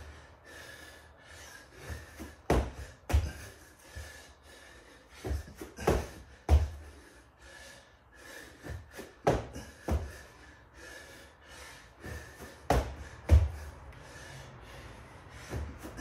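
Thuds of a man's feet and hands landing on the floor during four-count burpees, coming in pairs (jumping back, jumping in) about every three seconds. His breathing is heard between the thuds.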